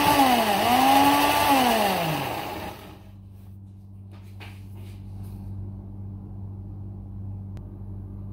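Countertop blender motor whirring as it purées tomato, onion, garlic and fresh coriander, its pitch dipping briefly about half a second in and then falling away as it winds down, stopping about three seconds in. After that only a low steady hum with a few faint knocks remains.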